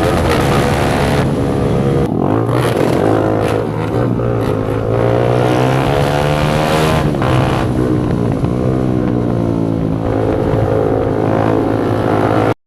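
Single-cylinder motorcycle engine running loud with its silencer removed, its pitch dipping and rising several times as it is revved. The sound cuts off suddenly near the end.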